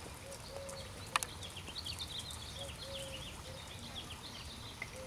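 Birds chirping: a run of quick, high chirps through the middle, a few short lower whistled notes, and a sharp click about a second in, over a steady low background noise.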